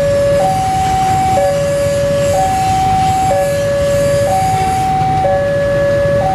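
Level-crossing warning alarm sounding a two-tone signal that alternates between a lower and a higher pitch about once a second. Under it runs the low rumble of a diesel-electric locomotive approaching slowly over the turnouts.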